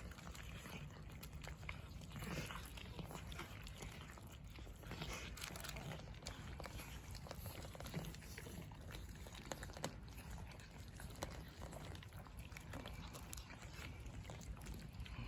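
Cats eating, with irregular small clicks and crunches of chewing.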